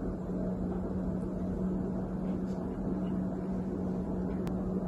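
Steady hum with one constant low tone over even background noise, unchanging throughout: room tone.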